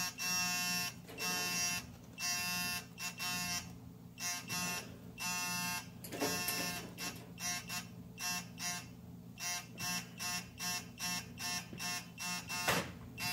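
The GEARWRENCH 120XP digital torque wrench's electronic buzzer sounds in repeated pulses, warning that the preset angle is near. The pulses start long and spaced, then come shorter and quicker, about three a second, as the wrench turns toward the target. A sharp click sounds about six seconds in and another near the end.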